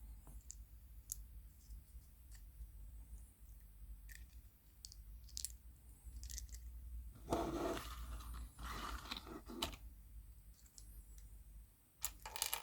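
Hands handling small plastic toys and wrapping: scattered light clicks and taps, with a longer stretch of crinkly rustling in the middle and a short burst of it near the end.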